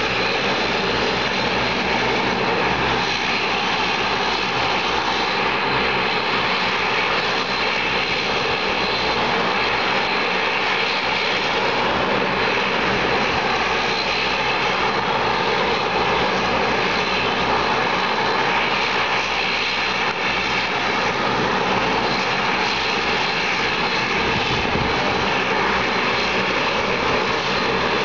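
Dash 8-Q400's Pratt & Whitney PW150A turboprop engines running with both propellers turning. It is a steady, even roar with a high whine held through it.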